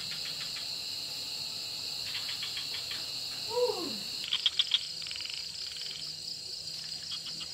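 Night insect chorus: a steady high-pitched trill of crickets, with trains of rapid chirping pulses coming and going. About three and a half seconds in, a single short call falls steeply in pitch, and a few sharp clicks follow just after.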